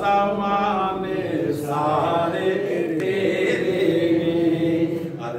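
A man chanting a Punjabi Sufi devotional poem (kalam) into a microphone, drawing the lines out in long held notes.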